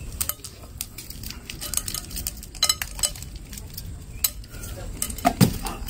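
Mentos mints being unwrapped from their paper rolls and dropped into a glass bowl: irregular sharp clicks and clinks of mints striking glass and each other, with paper wrappers rustling. A brief low voice sound near the end.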